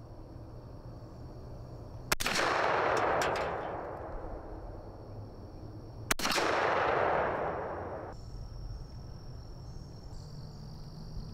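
Two 12-gauge shotgun shots about four seconds apart from a Browning Maxus II semi-automatic firing 2¾-inch Boss #4 steel shot shells, each a sharp crack followed by a long fading tail of about two seconds. Insects shrill steadily in the background.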